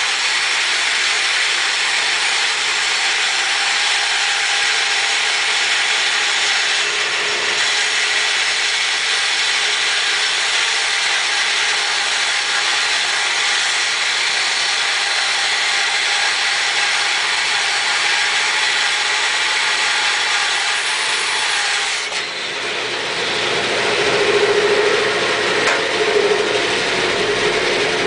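Grizzly G0513 band saw, 2 hp motor, resawing oak just under 9 inches wide with a half-inch, 3 teeth-per-inch blade: a steady sawing noise as the blade cuts through the wood. About three-quarters of the way through, the sound dips briefly and turns to a lower, humming tone.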